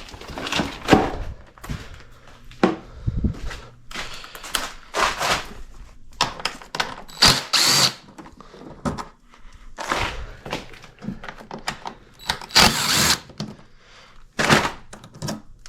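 Hand tools working the fuel-tank bolts on a Honda XR250R dirt bike: a socket wrench ratcheting in quick runs of clicks, with knocks and clanks of metal tools and parts.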